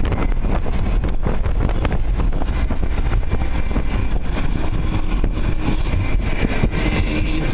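Train passing a level crossing: a loud, steady rumble with rapid clattering and rattling throughout, the passing noise the uploader finds strange.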